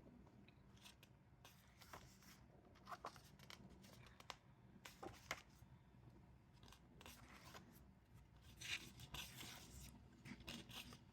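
Faint rustling and soft clicks of paper being handled as the pages of a K-pop album's photo book are turned, with a few louder rustles near the end.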